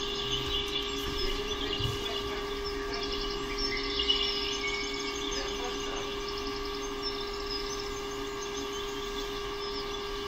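Small birds chirping and singing, with quick repeated trills, over a steady humming tone.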